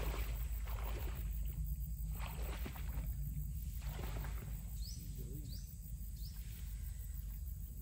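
Wind on the microphone with rustling in marsh grass coming in surges about once a second, and two short rising chirps a little past the middle.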